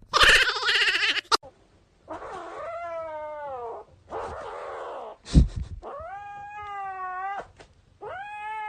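A cat yowling: three long, drawn-out meows of about a second and a half each, the first falling in pitch. A loud noisy burst comes before them, and a short sharp knock falls between the first and second calls.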